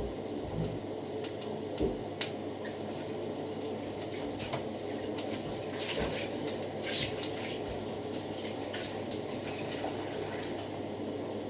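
A pot of food bubbling on the stove, a steady wet hiss with scattered small pops and clicks.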